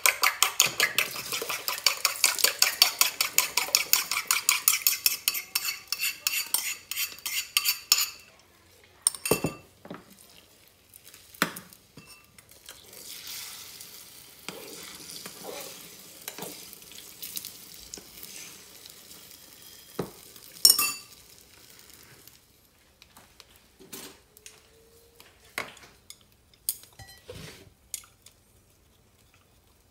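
Egg being beaten briskly in a ceramic bowl: rapid, even clinks of the utensil against the bowl for about the first eight seconds. Then egg frying in a small pan with a soft sizzle, and scattered knocks of a fork against the pan, the sharpest about two-thirds of the way through.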